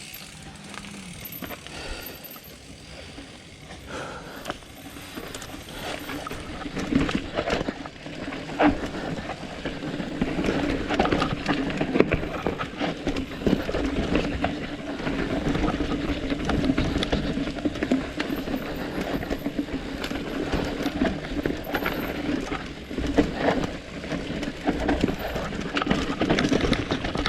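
Mountain bike riding down a dirt trail: tyre noise with frequent knocks and rattles from the bike over rough ground, getting louder about six seconds in, with a steady hum under it from then on.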